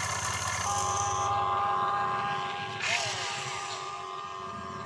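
Small electric motors and plastic gearboxes of an RC excavator running as it slews its arm and digs: a steady whine with a fast gear rattle, and a short scrape of the bucket about three seconds in.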